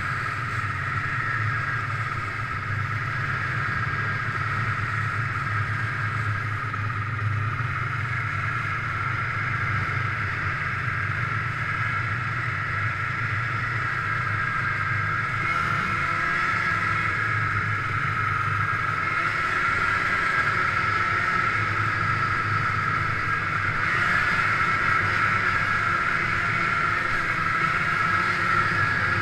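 1997 Ski-Doo MX Z 583 snowmobile's two-stroke twin engine running steadily while cruising along a trail, getting slightly louder in the second half.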